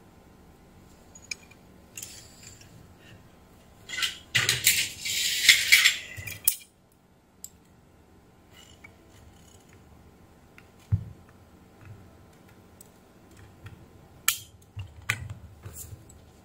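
Metal parts and a circuit board being handled on a workbench: scattered clinks, scrapes and knocks, with a louder stretch of clattering about four to six and a half seconds in and a dull knock near eleven seconds.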